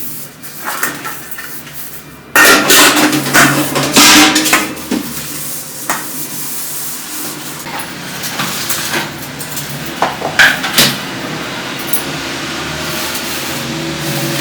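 Dishes and pots being handled: clattering that starts suddenly about two seconds in, with several sharp knocks scattered through it.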